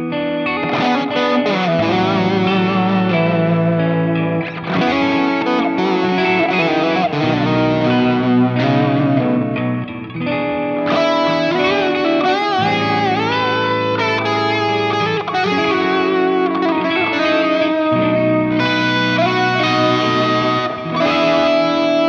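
Electric guitar lead played on a Bacchus BST-2-RSM Stratocaster-style guitar through a Nux MG30 multi-effects modeler, with bent and vibrato notes over held low notes.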